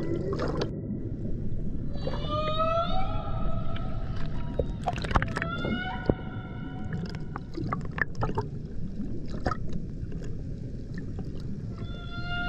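Humpback whale song heard underwater: long drawn-out calls, some gliding upward in pitch about two seconds in and again near the end, others held level a few seconds later. The calls sit over a steady low water noise, with a few sharp clicks.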